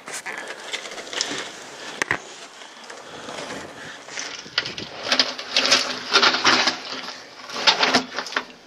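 Crunching and scraping of grit and gravel underfoot and against concrete as someone clambers down into a concrete chamber, mixed with rubbing and knocking handling noise on the camera. The scrapes come thick and fast in the second half.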